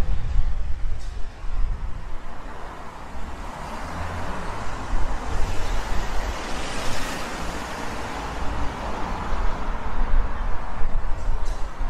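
Road traffic passing close by, with a steady low rumble; one vehicle's noise swells and fades about seven seconds in.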